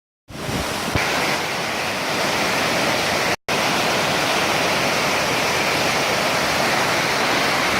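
Waterfall water rushing in a steady, loud roar of noise, with the sound cutting out briefly twice: at the start and about three and a half seconds in.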